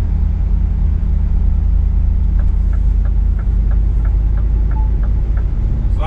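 Heavy truck's diesel engine running under way, heard inside the cab as a steady low rumble. From about two seconds in, the turn signal ticks about three times a second for a few seconds.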